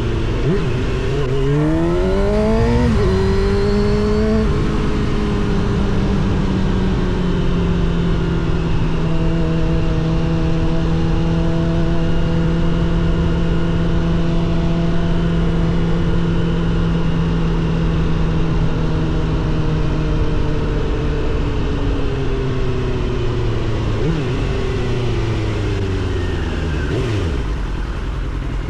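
Suzuki GSX-R750 SRAD inline-four through a Yoshimura R77 exhaust, revving hard through two quick upshifts, then cruising at steady revs. Over the last several seconds the revs fall away steadily as it slows.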